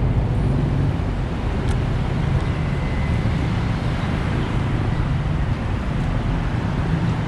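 Steady, deep rumble of road traffic.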